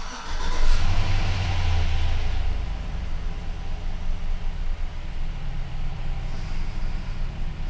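Chevy 5.3-litre LS V8 firing up on its first start after a head gasket replacement, heard from inside the truck's cab. The revs flare for a second or two just after it catches, then it settles into a steady idle.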